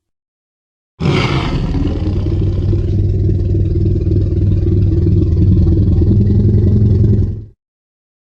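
Tyrannosaurus rex roar sound effect: a deep, rumbling growl that starts suddenly about a second in with a harsher opening, holds for about six seconds, then fades out.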